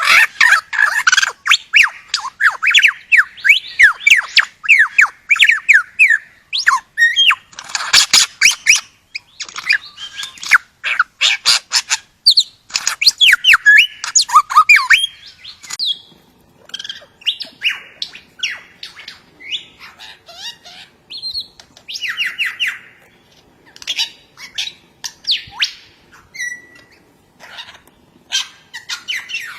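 Bird calling: quick runs of short chirps mixed with harsh, raspy squawks. The calls come in dense runs at first and become more spaced out in the second half.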